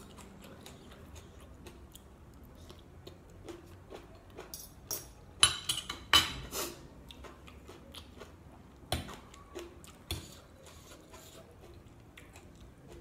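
Close chewing and wet mouth sounds of someone eating a glass-noodle salad, with a fork and spoon clicking and scraping on a plate; a run of louder clinks and scrapes comes about halfway through, and single ones later.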